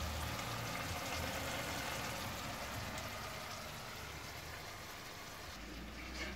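Chopped tomatoes and onions cooking in olive oil in a pot, a steady fine sizzle and bubbling that eases a little toward the end.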